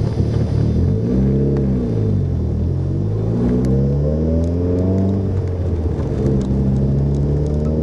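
Mitsubishi Lancer Evolution VIII's turbocharged 4G63 four-cylinder, with a Precision 6262 turbo and straight 3-inch exhaust, heard from inside the cabin. The engine note rises and falls briefly about a second in, climbs again for about two seconds, drops sharply at a gear change about five seconds in, then holds steady.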